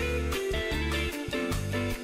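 Background music led by guitar with a steady beat.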